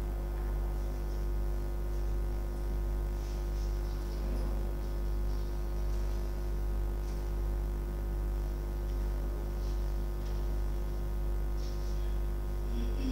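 Steady electrical mains hum on the sound system: a low drone with a steadier higher tone above it. A few faint small clicks and rustles come and go over it.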